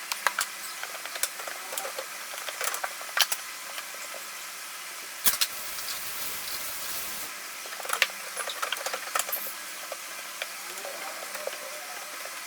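Kitchen items being handled while a fridge is cleaned and put back in order: scattered light clicks and knocks over a steady hiss, with a fuller rustling or rubbing stretch about five seconds in that lasts a couple of seconds.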